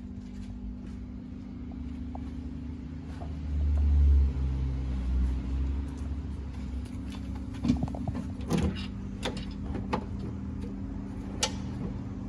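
Steady low hum with a low rumble swelling for a couple of seconds in the middle, then a handful of sharp clicks and knocks from hand tools and parts being worked inside a car door.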